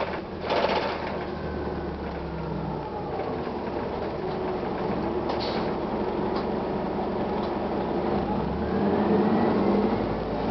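Interior running noise of a 1999 Gillig Phantom transit bus, with its Detroit Diesel Series 50 engine and Allison B400R transmission droning steadily. A whine drifts down in pitch early on and climbs again near the end as the sound grows louder. A brief hiss comes about half a second in.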